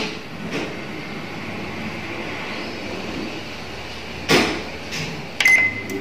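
Samsung microwave oven's control dial clicking as it is turned to set the grill timer, over a steady hum. About four seconds in comes a sharp knock, then a click and a short high beep as the oven starts.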